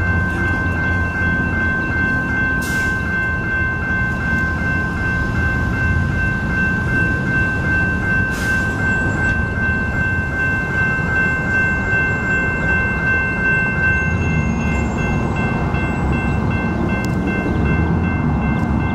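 Diesel freight locomotives rumbling steadily as a train approaches, with steady high-pitched tones sounding over the rumble; one of the tones stops about two-thirds of the way in.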